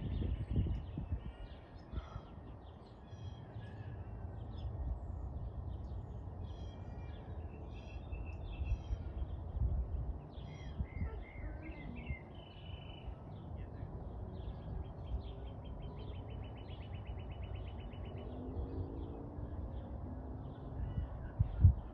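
Several wild birds chirping and calling, with a rapid even trill about two-thirds of the way through, over a steady low rumble of wind or handling noise on the microphone.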